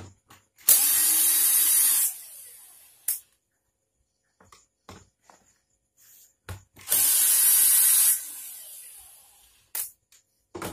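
A handheld power tool running in two bursts of about a second each, with a loud rushing hiss. Each burst trails off after the tool is released, with a few small clicks between them.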